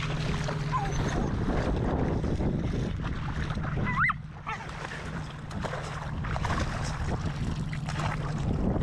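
A person wading and a dog splashing through shallow lake water, with wind buffeting the microphone. A short rising squeak comes about four seconds in.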